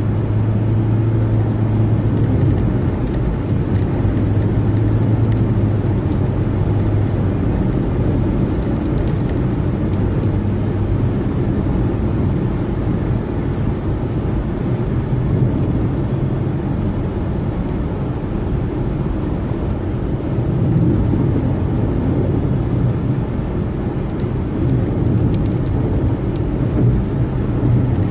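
Car travelling at freeway speed: a steady low rumble of tyre and road noise, with a low hum that fades after about ten seconds.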